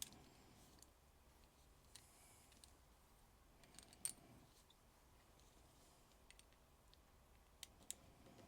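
Near silence with a few faint, sharp clicks and taps from a small plastic action figure being handled. The loudest come about four seconds in and again near the end.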